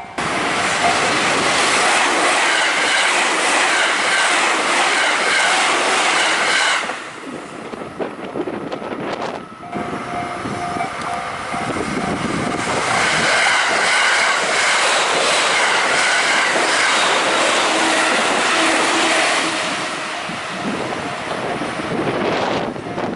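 Electric trains passing at speed, wheels clattering on the rails. The noise falls away about seven seconds in and builds again a few seconds later as a train goes by.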